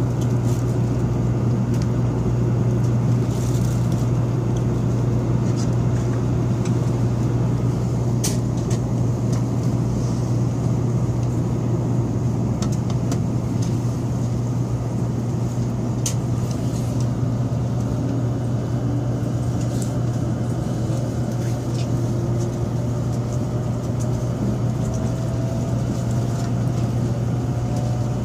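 Cabin sound of a Taiwan High Speed Rail 700T bullet train pulling out and accelerating: a steady low hum and rumble, with a faint whine from the electric traction drive that rises slowly in pitch through the second half as the train gathers speed. A few light clicks occur.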